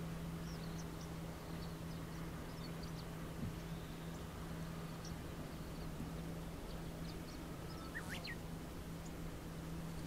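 Outdoor ambience above the sea: a soft, even background hiss with a steady low hum under it. Faint high bird chirps come and go, and a short, sharper bird call sounds about eight seconds in.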